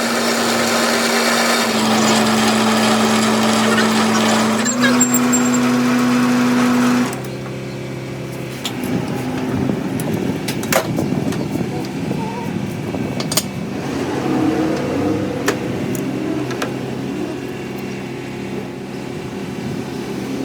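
A workshop machine runs with a steady hum and hiss, its pitch stepping up twice, then stops about seven seconds in. After that comes quieter clattering with scattered sharp clicks.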